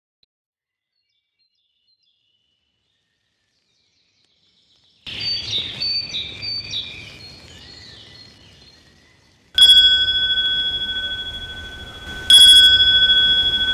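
After about five seconds of silence, birds chirp in a run of short, repeated high calls. Then a hanging metal bell is struck twice, about three seconds apart, and each strike rings on with a steady, clear high tone that slowly fades.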